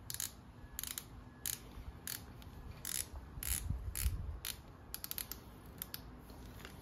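Hand socket ratchet clicking in short bursts as it is swung back and forth on a fastener, about a dozen strokes, with a quicker flurry of clicks about five seconds in.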